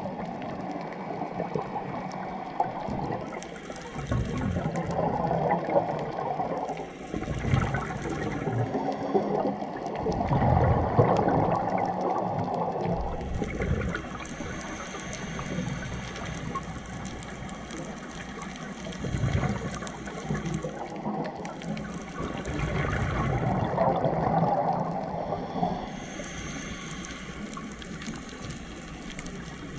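Underwater scuba breathing: the diver's regulator hissing, with gurgling rushes of exhaled bubbles every several seconds.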